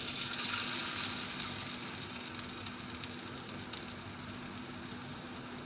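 Black chickpea (kala chana) kabab patty sizzling in shallow oil in a frying pan. The hiss is loudest in the first second as the patty hits the hot oil, then settles to a steady sizzle.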